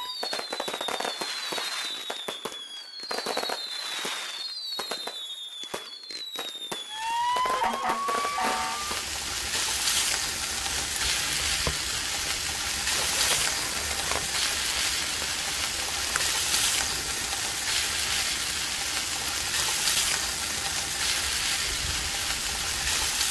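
Whistling fireworks: a run of whistles falling in pitch, with crackles. About seven seconds in they give way to a steady, dense crackling sizzle that carries on.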